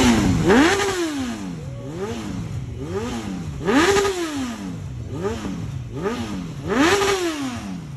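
Honda CBR919RR motorcycle's inline-four engine being revved over and over. The pitch jumps up quickly and sinks back slowly each time, with three bigger rises and several smaller ones between.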